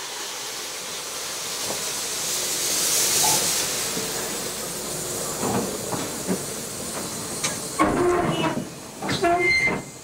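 Steam locomotive rolling slowly, its cylinders hissing steam, with metal clanks from the running gear in the last two seconds.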